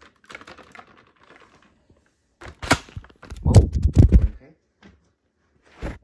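Handling noise: light rustling, then about halfway through a run of sharp plastic clattering and heavy thumps, with a couple more sharp clicks near the end. No vacuum motor is running.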